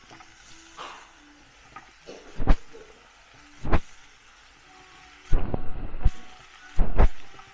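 Chopped watermelon-rind cubes tipped from a plastic cutting board into a frying pan, with a faint sizzle underneath. About halfway through come two sharp knocks as the board is tapped on the pan. Near the end two louder scraping rushes follow as the pieces are pushed off into the pan.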